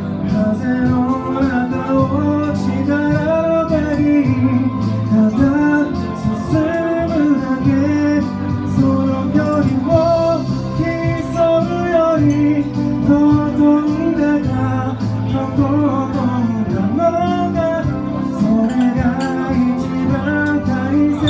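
Live band performance of a mid-tempo pop song, with sustained keyboard chords, a steady bass and a sung melody line.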